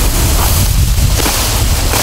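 Wind buffeting the microphone with a heavy, fluttering rumble, over the rustle of leaves and weed stems as a person pushes through dense brush.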